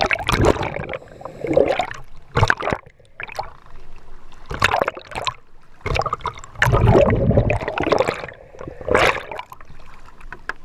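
Seawater splashing and gurgling around a camera at the surface, in irregular bursts as it dips in and out of the water.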